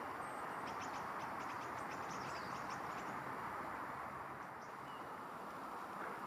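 Small wild songbirds calling: a quick run of high, thin notes over the first three seconds, then a few short, lower notes near the end, over a steady rushing background noise.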